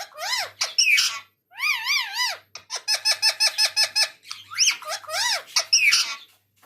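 A pet parrot vocalising in high, squeaky calls whose pitch wavers up and down, in four runs with short pauses between them. The middle run is a quick string of repeated notes.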